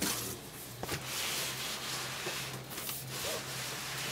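A large cardboard product box being slid out of a snug outer cardboard shipping carton: a continuous scraping rub of cardboard against cardboard.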